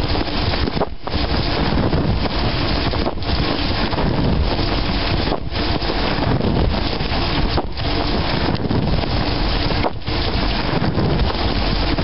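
Water spraying inside a running dishwasher, heard from within the tub: a loud, steady rushing that dips briefly about every two seconds.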